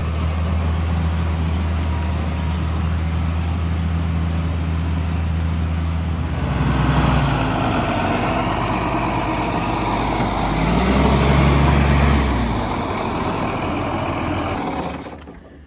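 Old Timberjack log skidder's diesel engine running steadily at low revs, then revving up about six seconds in and again around eleven seconds, before dropping away near the end.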